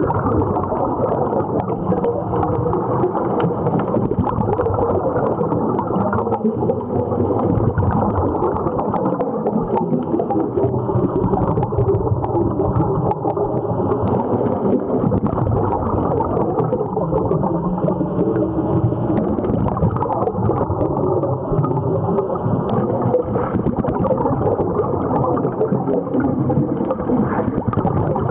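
Scuba diving heard underwater through a camera housing: a steady, muffled churning rumble of water and exhaled bubbles, with a faint hiss of regulator breaths about every four seconds.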